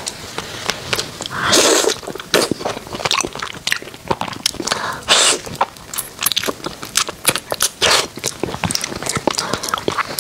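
Close-miked eating: crispy fried food being pulled apart and bitten, with many sharp crunches and chewing clicks. Three louder, longer bursts come about one and a half, five and eight seconds in.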